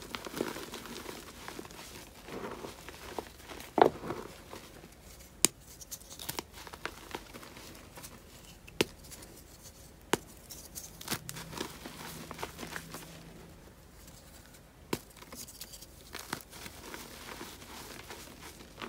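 Hands crushing reformed gym chalk: dry, crunchy crumbling and powdery crackle as the chalk breaks apart. Sharp snaps come now and then as pieces crack, the loudest about four seconds in.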